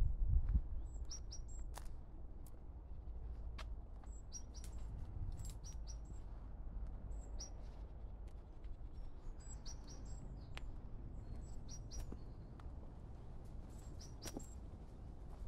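Small birds chirping and singing in short, high-pitched phrases, over a steady low rumble that is louder in the first half second.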